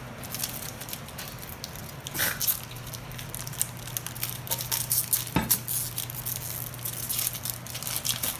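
Foil wrapper of a trading-card pack crinkling and crackling in the hands as it is torn open, in irregular crackles with louder ones about two and five seconds in.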